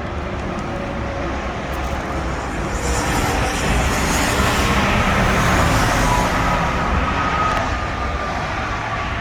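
Loud, continuous road-traffic noise, swelling as a vehicle passes from about three seconds in and easing off near the end.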